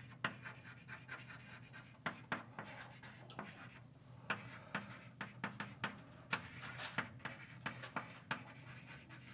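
Writing on a lecture-room board: a faint, irregular string of short taps and scratching strokes, a few a second, over a steady low hum.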